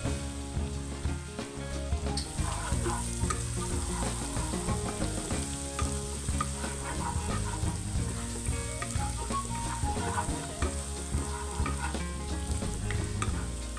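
Chopped garlic sizzling in melted butter in a wok, with a wooden spatula stirring and scraping it around the pan.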